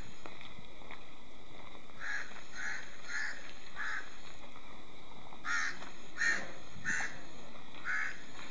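A bird calling with short, harsh, caw-like notes: a run of four calls about two seconds in, then another run of four about halfway through.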